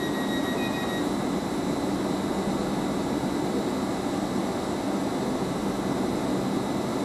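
Steady mechanical rumble and hum of railway station ambience. A faint high-pitched whine stops about a second in.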